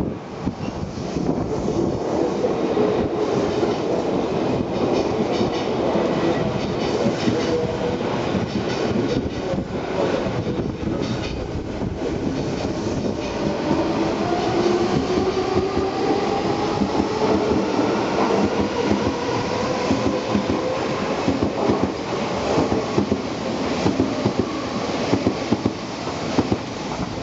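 Odakyu 4000 series electric multiple unit pulling out and rolling past: its traction motors whine, rising steadily in pitch as it gathers speed, over the regular clatter of wheels on rail joints as the cars go by.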